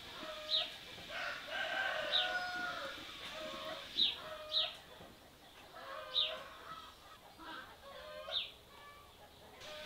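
Chickens clucking, with short, sharp high chirps standing out every second or two.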